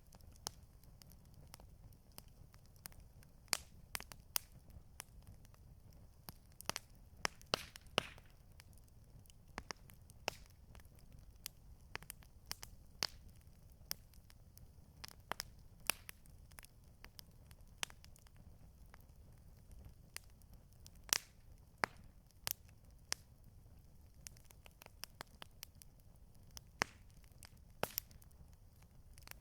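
Wood campfire crackling: irregular sharp pops and snaps, a few louder ones standing out, over a low steady rumble.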